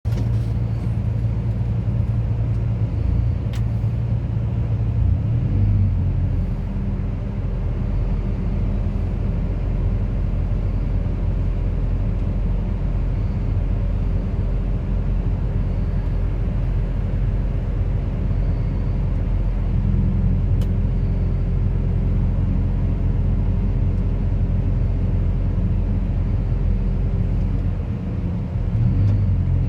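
Bobcat RTH 70.260 rotating telehandler's diesel engine running steadily, its pitch changing a few times as the engine speed goes up and down. A steady higher tone sits over the engine through most of the middle.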